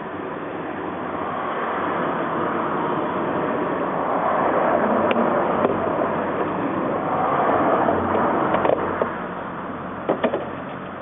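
Rustling, scraping handling noise that swells and fades, with a few sharp clicks and knocks, as a serpentine belt is worked onto the engine's pulleys.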